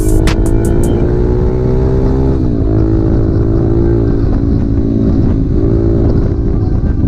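Suzuki DR-Z400SM's single-cylinder four-stroke engine pulling under acceleration. Its pitch climbs, drops sharply with an upshift about two and a half seconds in, then holds steady at speed.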